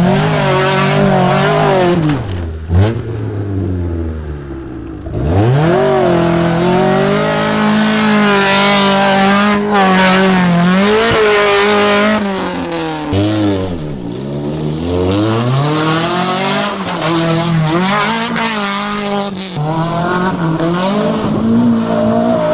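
A small car's petrol engine revving hard in repeated surges as it is driven off-road, its pitch climbing and then dropping sharply several times.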